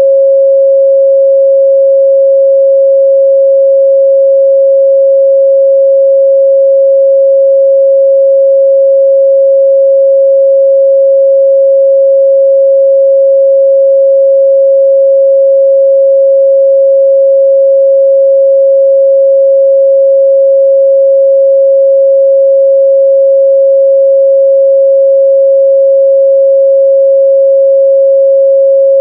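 Pure 545 Hz sine-wave test tone, held steady and unbroken at one pitch and level.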